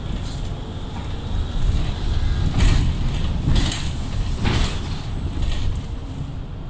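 Inside a Mercedes-Benz Citaro G C2 articulated bus on the move: a steady low rumble from the drivetrain and road, with three short rattles of the body and fittings in the middle as it jolts.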